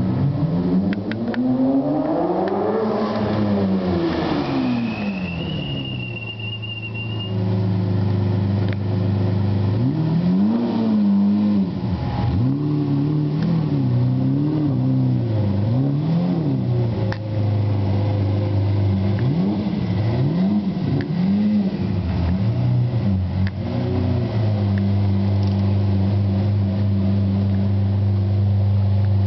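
Lamborghini Murciélago's V12 engine, revving up and down over the first few seconds. It settles to a steady low running note with several short throttle blips in the middle as the car is driven slowly, then idles steadily near the end.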